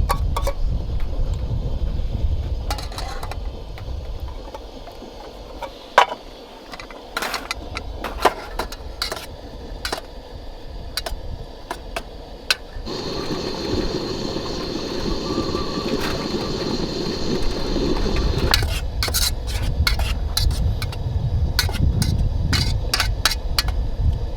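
Wind rumbling on the microphone, dropping away for a while and rising again near the end, with scattered clicks and clatters of small objects being handled. A little past halfway, a steady hiss with a faint high whine runs for about five seconds and then cuts off.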